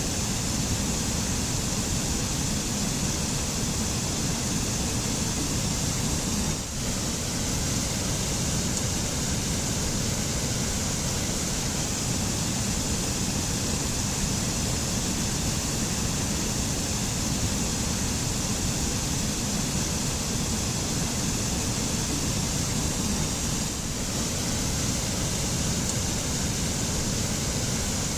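Waterfall: a steady, unbroken rush of falling water, with a brief dip about seven seconds in.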